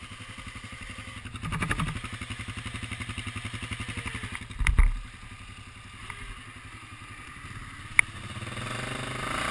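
ATV engine idling with an even, rapid pulse. Two heavy thumps cut through it, about a second and a half in and near five seconds, and a sharp knock comes near the end.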